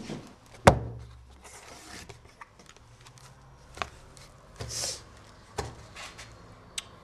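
A cardboard pizza box is handled and opened, with one sharp knock about a second in. Scattered light clicks and a brief rustle follow as hands dig through the pizza.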